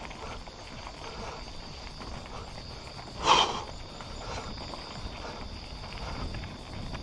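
Mountain bike rolling over a rough dirt trail, with a steady high insect trill from crickets behind it. One short, loud, sharp noise about three seconds in.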